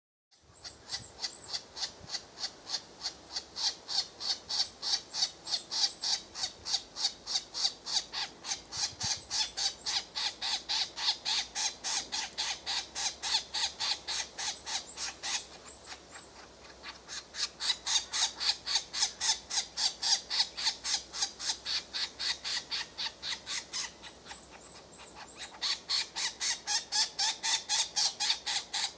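Green woodpecker nestlings begging from inside a tree-hole nest: short, harsh, high-pitched calls repeated about four or five times a second. The calls ease off briefly twice.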